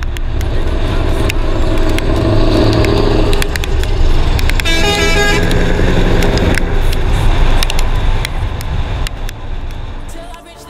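Scania R500's V8 diesel running through an open pipe with no silencer, a steady low drone as the truck drives at motorway speed. About five seconds in, an air horn blows once for about a second. The engine sound drops away near the end.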